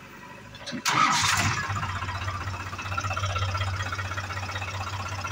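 New Holland tractor's diesel engine running with a steady drone, heard from the driver's seat. About a second in there is a brief loud rush of noise before the engine sound settles.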